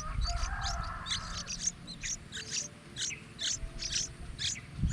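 Small birds' short, high-pitched call notes repeated about two to three times a second over a low rumble.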